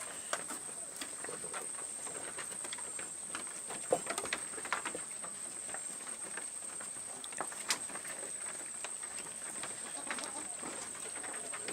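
Goats moving about in their pen: scattered hoof clicks and knocks with a few faint bleats, under a steady high-pitched whine.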